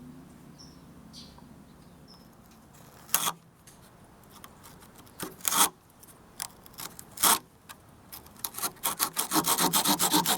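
Small folding saw blade of a Victorinox Farmer Swiss Army knife sawing. A few single, spaced strokes come first, then quick back-and-forth strokes, several a second, near the end.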